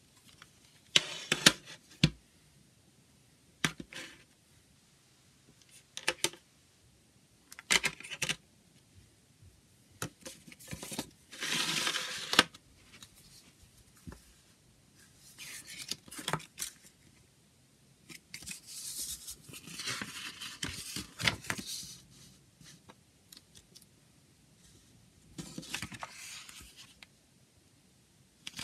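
Plastic clicks and snaps of a CD jewel case being handled and opened, with short bursts of paper rustling as the booklet is taken out and unfolded. Each comes on its own, with quiet gaps between.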